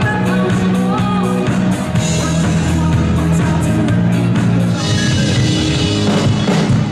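Loud pop-rock music with a steady beat.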